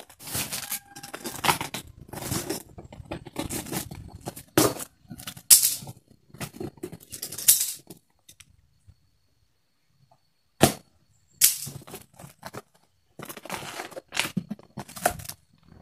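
Cardboard box being opened by hand: tape pulled off, flaps and an inner carton pulled open, and plastic bags handled, a run of crackles, rips and scrapes. The handling stops for a couple of seconds past the middle, then starts again with one sharp crack.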